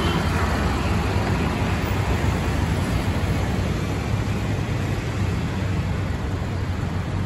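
Steady traffic and road noise from a moving vehicle on a city street: a low rumble under an even hiss.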